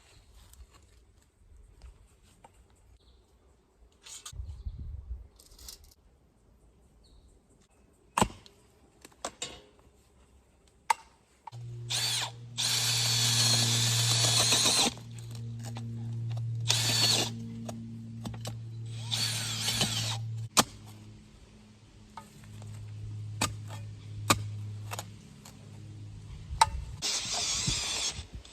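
Handheld power drill boring holes in the ground, running in several loud bursts of grinding over a steady low motor hum. A few sharp knocks come in the quieter first part.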